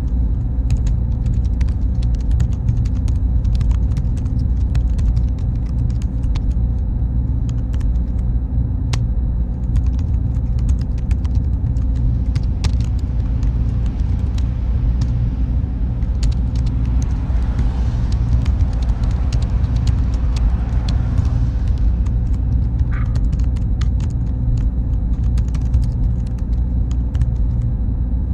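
Computer server room ambience: a steady low machine rumble with a faint high whine and scattered light ticks. A softer hiss swells for a few seconds around the middle, then fades.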